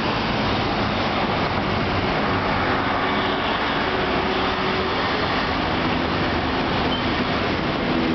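Steady road traffic noise from cars and buses running over the bridge's roadway, with the hum of a passing engine heard at times.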